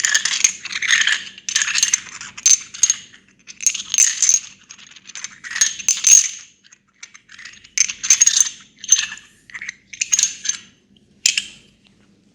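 Light metallic jingling in short, irregular bursts, about one a second, stopping shortly before the end.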